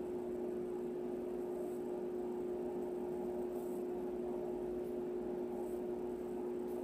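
A steady low hum holds throughout, with a few faint, brief rustles as artificial greenery stems are worked into a mesh wreath.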